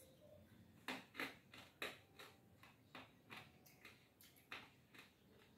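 Crispy pork cracklings (torresmo) being chewed: a run of faint, sharp crunches, about three a second, starting about a second in and thinning out near the end.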